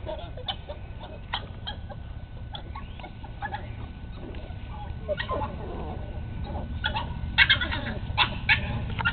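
Six-week-old American Bulldog puppies giving short yips, squeaks and little growls while tussling over a flirt pole lure. The sounds are scattered at first and come thicker and louder in the last couple of seconds.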